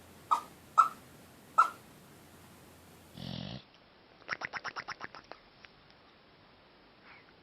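A sleeping dog letting out short, sharp yips, three in the first two seconds, as it barks in a dream. About three seconds in there is a brief burst of noise, then a quick run of about ten short sounds over a second.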